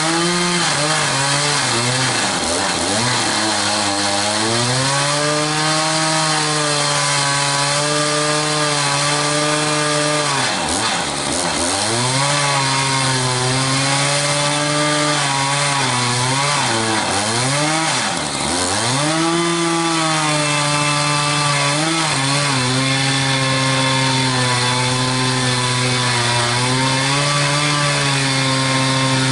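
Echo CS-590 Timberwolf two-stroke chainsaw running at high revs, cutting into a big log. The engine pitch drops and climbs back about a third of the way in and twice around two-thirds of the way, with smaller wavers elsewhere.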